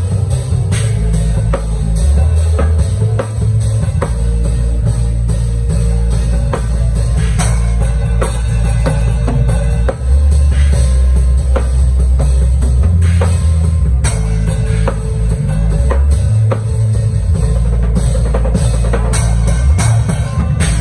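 Drum kit played in a busy groove, with snare, bass drum and cymbal hits throughout. Underneath runs a sustained low bass line that changes note every second or two.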